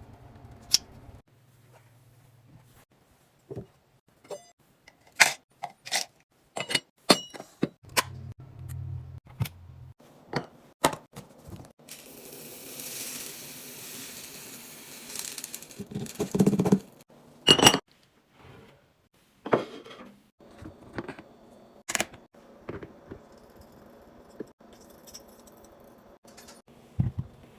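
Kitchen restocking handling sounds: a string of clicks, knocks and clinks of containers, lids and packaging being set down and handled. About twelve seconds in comes a few seconds of steady rustling, then a cluster of louder knocks.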